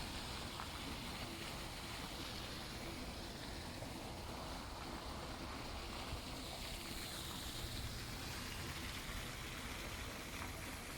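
Steady rushing noise of rain and traffic on wet city streets, even throughout with no single sharp event.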